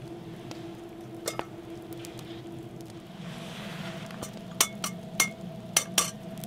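Metal cookware and utensils clinking, with sharp ringing clinks: one about a second in, then a quick run of about five in the second half.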